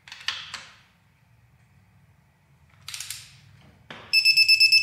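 A few metallic clicks as the torque wrench is worked on an ARP head-stud nut, then near the end a digital torque wrench starts beeping rapidly with a high, steady pitch, signalling that the 66 ft-lb target torque has been reached.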